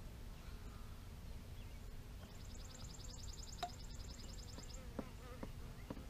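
Honeybee colony humming at the hive entrance, a steady low drone from a strong, full colony with all its field bees home. A fast, high-pitched ticking trill runs for about two seconds in the middle, and there are a few light clicks near the end.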